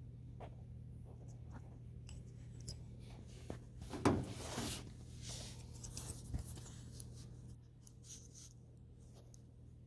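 Steel wool rubbing soot off a furnace flame sensor: intermittent light scratching and small clicks, loudest about four seconds in, over a steady low hum.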